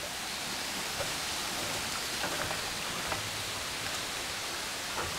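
Steady rush of running stream water at a small dam, with a few faint knocks.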